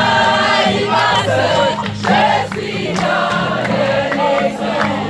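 A group of voices singing together, a campfire sing-along.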